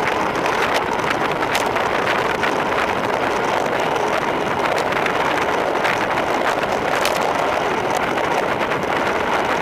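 Steady rushing of wind across the microphone of a road bike descending at speed, with a few sharp ticks from the bike.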